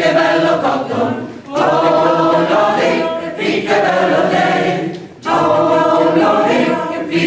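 Mixed choir of men's and women's voices singing a cappella, in sung phrases broken by short breaths about a second and a half in and again near five seconds.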